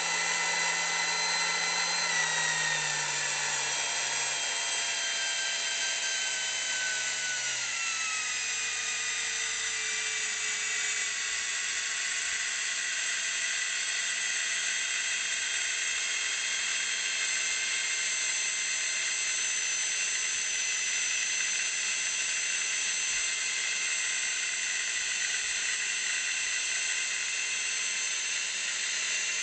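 Aoki Seiki high-speed precision drill press with an 80 W stepless-speed motor, running with a whine of several tones. The pitch falls over about the first ten seconds as its speed knob is turned down, then holds steady at the lower speed.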